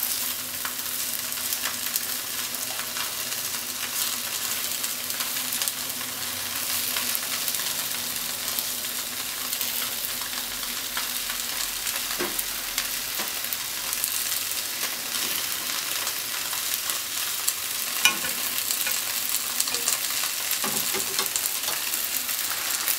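Potato-starch-coated tofu pieces sizzling steadily as they pan-fry in a frying pan, with a few sharp taps of wooden chopsticks against the pan as the pieces are turned.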